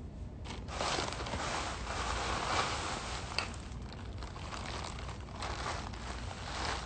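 Close rustling and scraping from hands handling a phone right at its microphone, irregular, with one sharp click about three and a half seconds in.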